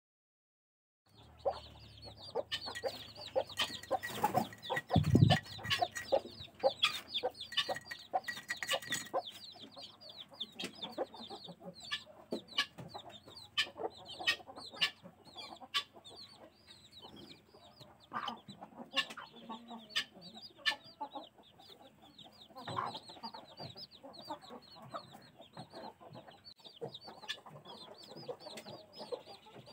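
A brood of young chicks peeping continuously in rapid, high chirps, with a mother hen clucking among them, starting about a second in. A louder low thump comes about five seconds in.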